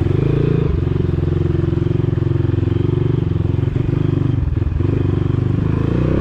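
Dirt bike engine running under way, a steady pulsing exhaust note with a few brief dips in level.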